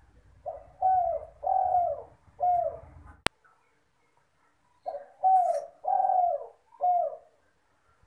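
Spotted dove (derkuku) cooing in two phrases, each a short note followed by three longer falling coos, with a sharp click between the phrases.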